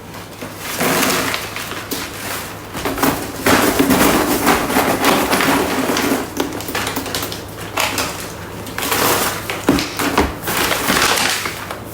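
Hard sugar-coated peanuts clattering and rattling as they are handled and dropped into small plastic bags, a run of small rapid clicks that rises and falls.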